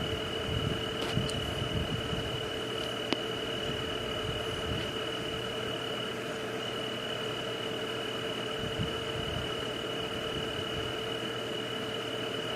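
Steady night-ambience white noise: an even hiss with a constant high-pitched tone and a lower steady hum, a few faint clicks and a soft low rumble in the first few seconds.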